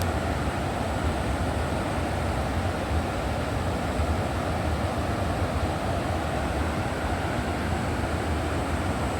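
River water rushing steadily, a continuous roar with a deep low rumble.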